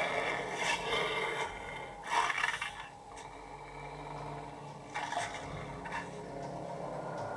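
Film soundtrack through home stereo speakers: rasping, scraping sound effects in three or four swells over a sustained music drone.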